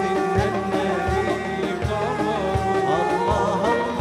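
A male munshid singing an Arabic religious song with a traditional ensemble of violin, flutes, keyboard and hand drums. The melody bends up and down over a drum beat that lands about every three-quarters of a second.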